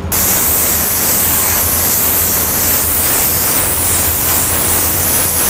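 Airbrush spraying body paint, fed by an air compressor: a loud, steady hiss that starts abruptly.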